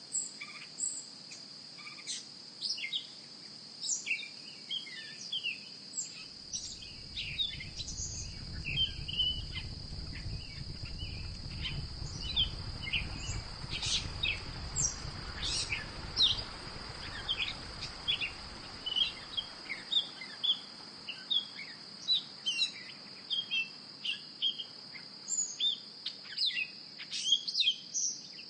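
Birds chirping and calling in quick, repeated short notes over a steady high-pitched insect drone. A low rumble rises under them from about six seconds in and fades out around twenty seconds.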